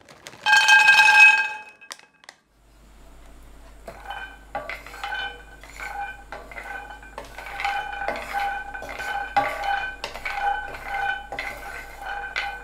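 A steel frying pan gives a brief loud ringing clatter about half a second in. From about four seconds, whole hazelnuts roll and knock against the pan as a wooden spatula stirs them, and the pan rings faintly with each knock.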